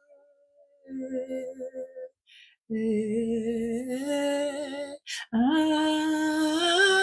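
A voice singing long held wordless notes in worship, the pitch stepping upward, with a sharp breath taken about five seconds in.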